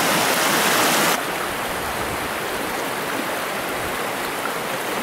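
Stream water rushing steadily over rocks; the rush is louder for about the first second, then drops suddenly to a quieter, even flow.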